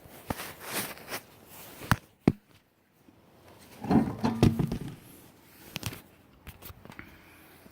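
Craftsman C3 half-inch cordless impact wrench hammering for under a second, about four seconds in, as it breaks a lug nut loose. A few sharp clicks come before it.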